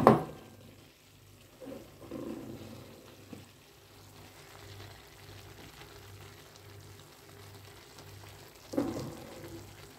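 Beef and vegetables simmering in their juice in an open frying pan, a low steady frying sound. A sharp knock right at the start and a shorter clatter near the end come from the utensil and pan being handled.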